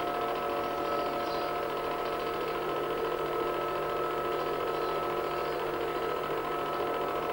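Home-movie film projector running: a steady whir and hum with hiss.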